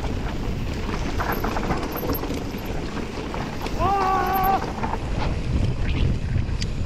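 Wind rushing over the cameras' microphones and mountain bike tyres running over a dusty, rocky trail on a fast descent, with scattered knocks and rattles from the bikes. A rider's short held call rings out about four seconds in.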